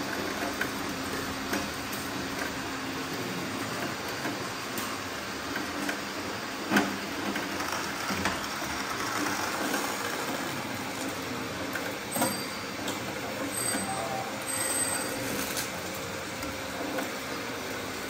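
Radio-controlled model construction machines working: steady mechanical running noise with scattered clicks and knocks, the sharpest knock about seven seconds in.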